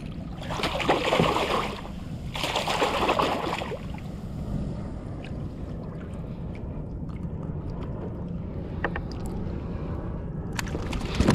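A weakfish thrashing in a landing net at the water's surface, making two bursts of splashing in the first few seconds, followed by quieter water movement and a few light knocks as the fish is handled.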